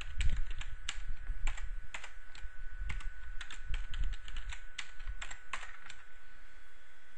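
Computer keyboard keys clicking in an irregular run as a password is typed in and then typed again to confirm. The keystrokes stop about six seconds in.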